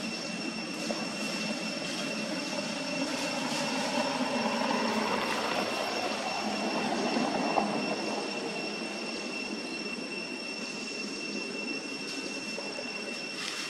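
A motor vehicle passing by: its engine sound grows louder to a peak about halfway through, then fades away.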